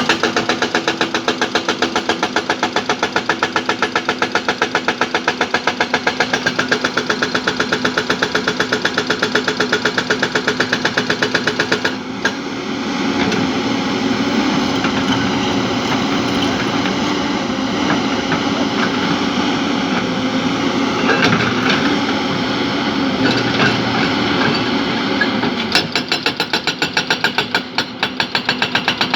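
Heavy diesel engine of a construction machine running with a rapid, even pulsing. About twelve seconds in it changes to a steadier sound, and near the end the pulsing returns.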